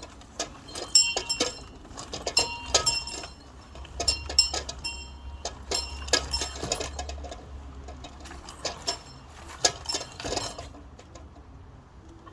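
A small bell rung by hand in quick, uneven bursts of clanging strikes, each leaving a short, high ringing. The ringing stops about ten and a half seconds in.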